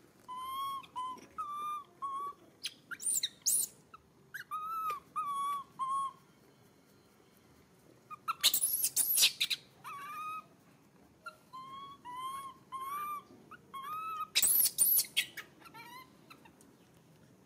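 Baby long-tailed macaque crying: a string of short, clear coos that bend up and down, in bunches, broken by two louder, shrill screams, one about halfway through and one about three-quarters of the way in.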